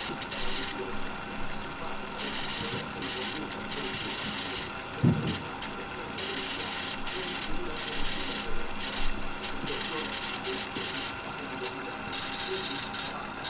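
Opened cassette deck's drive motor and tape transport running with a cassette loaded: a steady mechanical whir and hum, with a hiss that keeps cutting in and out. A single low thump about five seconds in.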